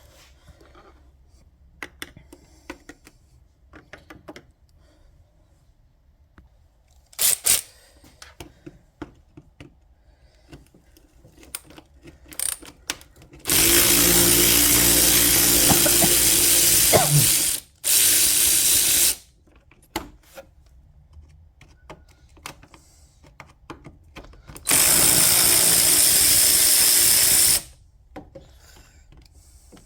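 A power drill runs in three steady bursts, about four seconds, then one second, then three seconds. It is most likely driving out fasteners during the hood latch cable job on a 2011 Ford Fiesta. Before the bursts there are scattered clicks and clatter of tools being handled.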